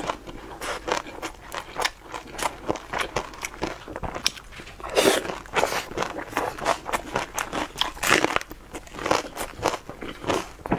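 A person chewing a mouthful of a wrapped vegetable roll close to a clip-on microphone: a quick, irregular run of chewing clicks, with louder chews about halfway through and again near the end.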